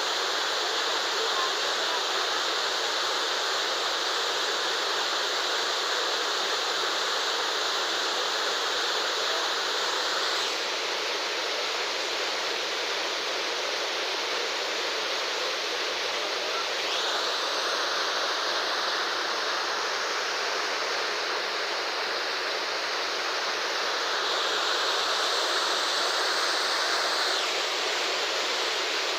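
Waterfall pouring steadily, a continuous rushing hiss of falling water. Its tone turns duller about a third of the way in, brightens again past the middle, and swells a little near the end.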